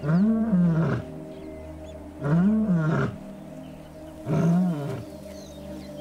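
Lioness calling three times, each call under a second long, rising then falling in pitch, about two seconds apart: a contact call to the scattered members of her pride.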